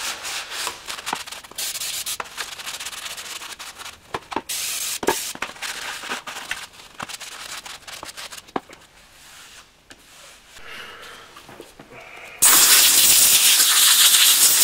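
A cloth rubbing and scrubbing over a new steel brake drum as it is wiped down with brake cleaner, with scattered light knocks of the drum on the floor. About twelve seconds in, the loud, steady hiss of an aerosol spray can starts suddenly.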